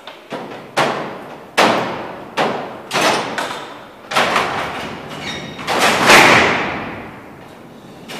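Heavy sliding steel cell doors, worked together by a lever-operated locking mechanism, clank in a rapid series of metallic impacts as they slide shut. The loudest slam comes about six seconds in and rings on in a long echo.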